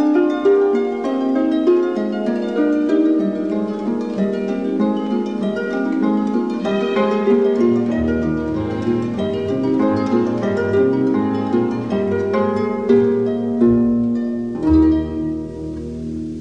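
Background music: harp playing a quick, steady run of plucked notes, with lower bass notes joining about halfway through.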